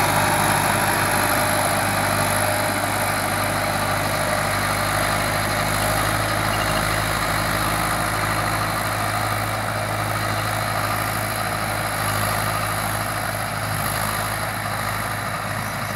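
Tractor engine running steadily with a Shaktiman side-shift rotavator hitched on, a constant low drone.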